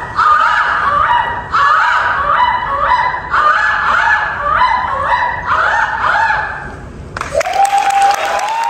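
A group of women's voices giving repeated high, rising calls in quick succession, about two a second, typical of sorority greeting calls. About seven seconds in the calls give way to applause, with one long call rising and held over it.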